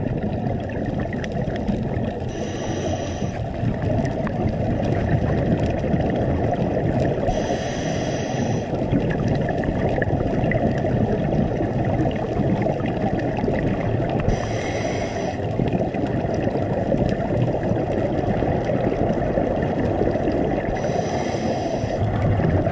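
A scuba diver breathing through a regulator underwater: four hissing breaths about six seconds apart over a steady, muffled underwater rumble.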